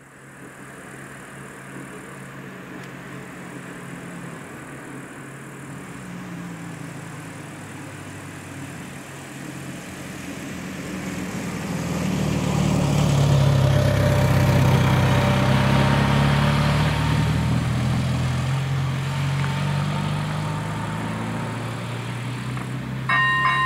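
A car's engine drawing closer, loudest about halfway through, then easing off. Near the end the level crossing's electric warning bell starts ringing in quick repeated strokes.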